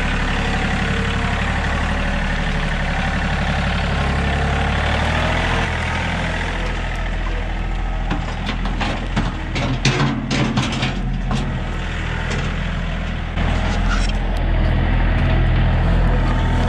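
Compact tractor's engine running steadily as its front loader works, with a run of thuds and knocks about eight to eleven seconds in as the bucket tips a load of beaver carcasses into a dump trailer.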